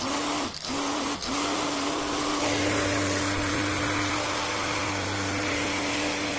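Homemade mini table fan driven by a small 5-volt DC motor, running steadily: a whirring hum with a strong rush of air from the blades. It starts suddenly, dipping briefly twice in the first second and a half.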